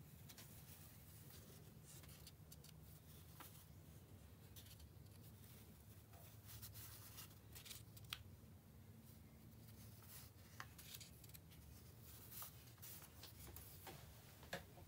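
Faint rustles and light taps of paper sheets being handled and laid down, scattered over near silence and a low steady hum.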